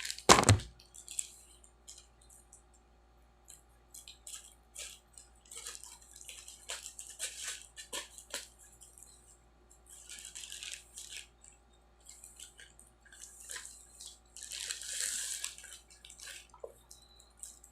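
Crinkling and rustling of a sealed parcel's plastic packaging in short bursts and clicks as it is handled and worked open, with a loud knock just after the start.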